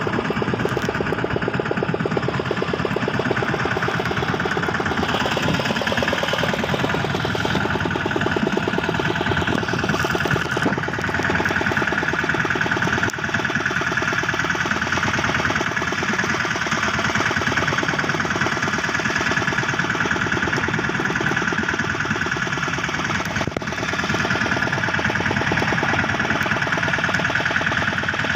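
Fishing boat's engine running steadily, a dense even chugging that holds the same speed throughout.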